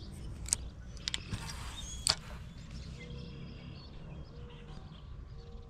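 A few sharp clicks, the loudest about two seconds in, from a spinning rod and reel being handled, over a low steady rumble. Faint bird chirps come in during the second half.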